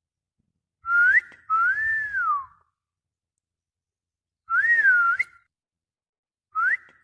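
A person whistling short phrases of sliding notes, each a quick upward slide followed by a rise and fall, three phrases in all with pauses of about two seconds between them; the last runs on past the end.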